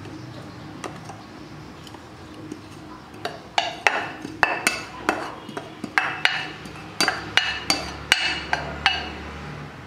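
A plastic scoop knocking and clinking against a steel bowl and container as refined flour is scooped and poured in. The knocks start a few seconds in and come about twice a second, each with a short metallic ring.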